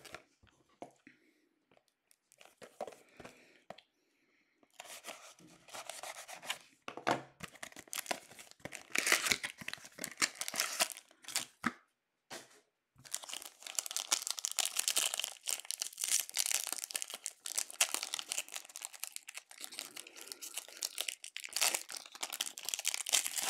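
Foil trading-card pack wrapping being torn open and crinkled by hand, in long stretches of tearing and rustling, after a few seconds of light handling clicks and with a short pause about twelve seconds in.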